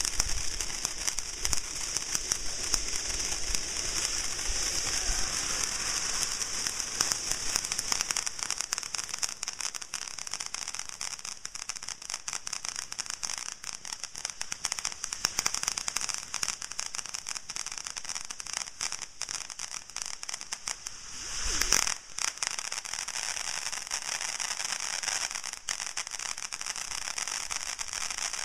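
Ground firework fountains spraying sparks: a steady high hiss with dense fine crackling, rising to a brief louder surge about three quarters of the way through.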